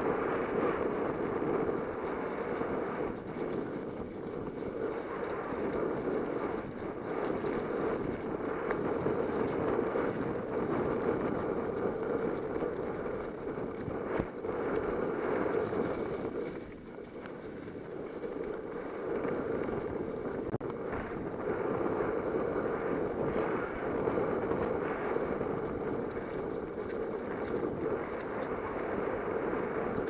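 Muffled, steady rumble of a mountain bike's tyres rolling fast over a leaf-covered dirt trail, mixed with wind rush, with a few faint knocks. It drops briefly about seventeen seconds in.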